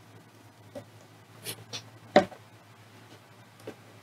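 Small clicks and taps of a yellow XT60 plug being clamped into the spring-loaded alligator clip of a helping-hands holder. The loudest is a single sharp snap about two seconds in, over a faint steady low hum.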